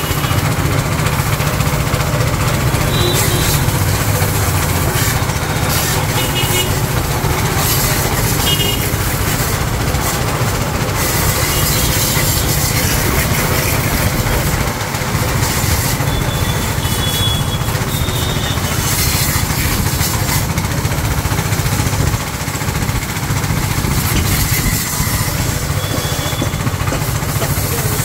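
A 7.5 HP petrol engine runs steadily under load, driving a VT-70S piston-type HTP pressure washer pump. Over it is the hiss of the high-pressure water jet spraying from the hose.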